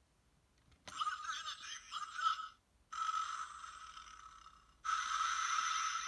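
A button click, then three tinny electronic sound effects from the Tomica Kizuna Gattai Earth Granner toy robot's built-in speaker, played one after another as its sounds are cycled. The second effect fades away before the third starts.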